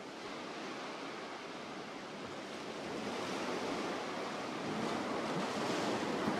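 Ocean surf washing onto a beach: a steady rushing hiss that fades in and grows gradually louder.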